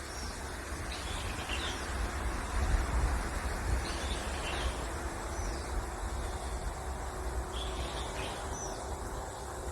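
Outdoor ambience: small birds chirping in short, high calls every second or so over a steady hiss and a low rumble.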